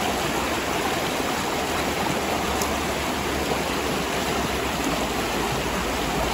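River water rushing steadily, an even wash of flowing current with no breaks.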